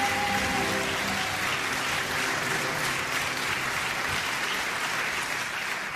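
Audience applauding, while the last held chord of the music dies away in about the first second.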